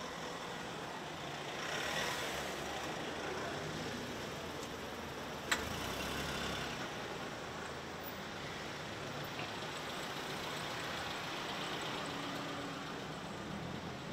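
Steady road traffic noise, with a vehicle passing about two seconds in. A single sharp click about five and a half seconds in is the loudest moment.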